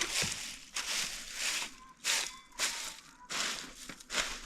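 Repeated short crunching, rustling noises, about one or two a second, from dry compost scraps and soil being handled and pressed into a raised bed.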